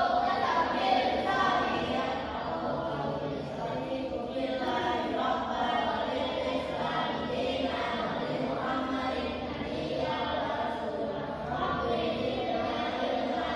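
Many voices chanting together in unison, a congregation's group recitation.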